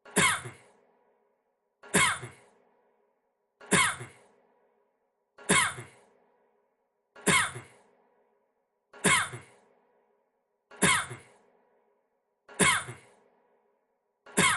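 A man's single short cough, looped so that it repeats identically about every 1.8 seconds, eight or nine times, with silence in between.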